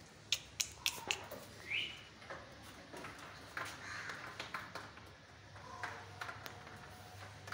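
Breeding buck goat making short harsh rutting calls, with a few sharp clicks in the first second.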